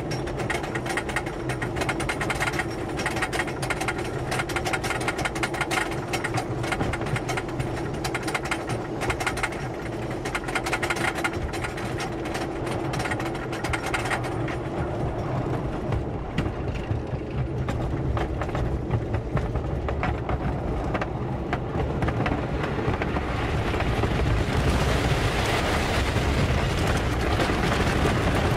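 Wooden roller coaster train with PTC cars running on the track, heard from on board: for the first half a dense, rapid mechanical clatter like a lift chain and anti-rollback ratchet. About 22 s in this swells into a louder rushing rumble of wind and wheels as the train picks up speed.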